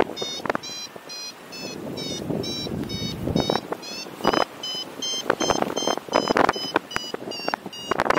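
Paragliding variometer beeping in a quick, even train of short tones, about two to three a second, the climb tone that signals the glider is going up in lift. Wind buffets the microphone in gusts over it.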